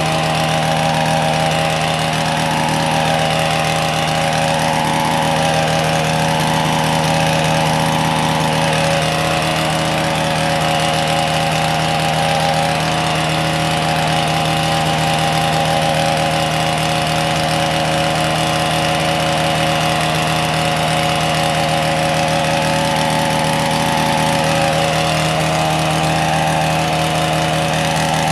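A small engine running steadily at a constant speed, without revving up or down.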